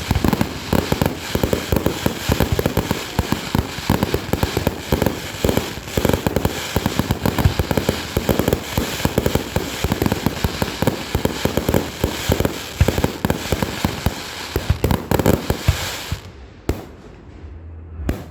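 Rapid, dense crackling pops, many per second, like a string of firecrackers, dying down sharply about sixteen seconds in.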